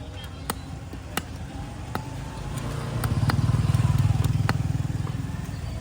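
A motorbike engine passing close by, swelling to its loudest in the middle and fading away. Several sharp clicks of clattering utensils sound over it.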